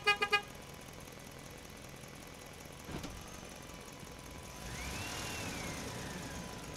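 Three quick toots of a vehicle horn right at the start. A single click follows about three seconds in, and the second half turns louder and rumbly, with a faint whistle that rises and then falls.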